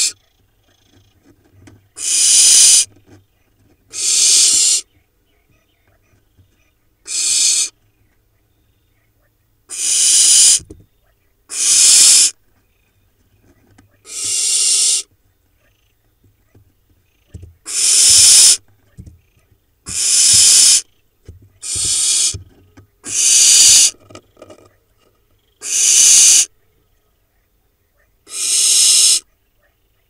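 Barn owl nestlings giving harsh, hissing rasps, about a dozen drawn-out calls each lasting around a second and coming every two seconds or so. This is the snoring-like food-begging call of barn owl chicks.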